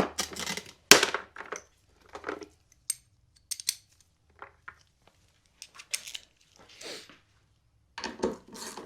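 Metal parts and hand tools clinking and knocking while a washing machine's heating element is worked loose and moved to the new tub: scattered clicks and clatters, with a sharp knock about a second in.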